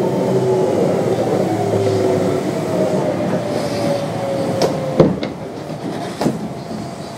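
Kintetsu 3200 series train's Mitsubishi GTO-VVVF traction inverter whining in several tones that slowly fall in pitch as the train brakes for a station, over wheel and rail noise. The whine stops about five seconds in, amid a few sharp clacks, and the running noise drops slightly.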